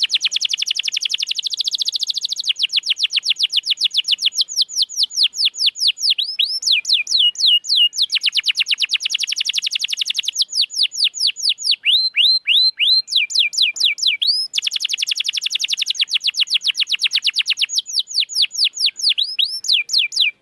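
Domestic canary singing: rapid rolling trills of sharply falling whistled notes, the speed and pitch of the trill changing every second or two.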